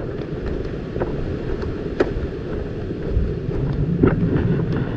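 Low, steady rumbling of wind on the microphone, with a few light knocks; the clearest comes about two seconds in.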